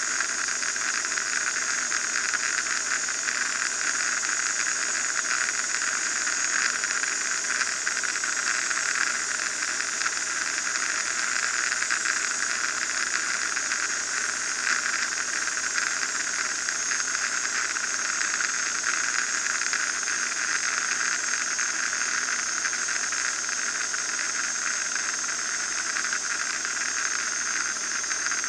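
Steady cabin noise of an RV-9A light aircraft in cruise flight: engine and propeller noise mixed with wind rush, heard from inside the cockpit as an even, unchanging hiss.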